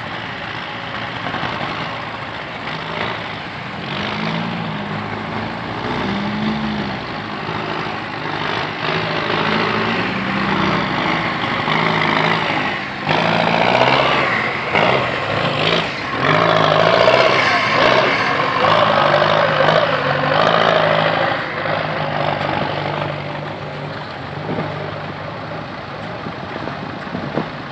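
Several old tractor engines idling together, some revving up and down. A louder engine runs close by from about 13 to 22 seconds in, with some clatter.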